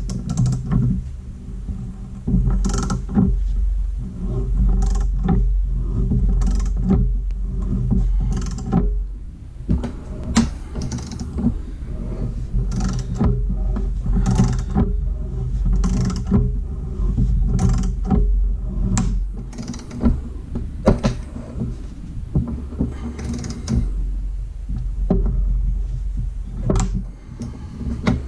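Ball joint press being worked to drive a new ball joint into an upper control arm: irregular metallic clicks, knocks and creaks from the tool. A steady low hum runs underneath and drops out a few times.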